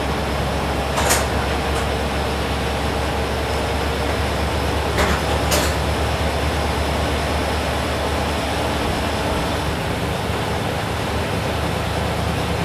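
Interior running noise of a KiHa 20 diesel railcar: a steady drone of the diesel engine and wheels on the rails. Sharp clacks of the wheels over rail joints sound once about a second in and twice close together around five seconds in.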